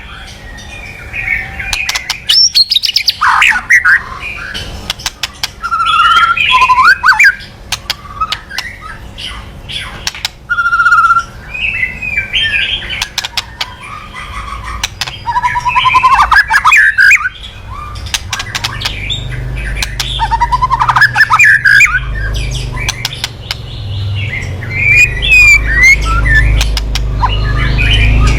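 White-rumped shama (murai batu) singing its aggressive 'kretekan' song: rapid harsh crackling clicks mixed with loud varied whistled phrases, the provoking call used to work up rival shamas. A low rumble builds underneath in the second half.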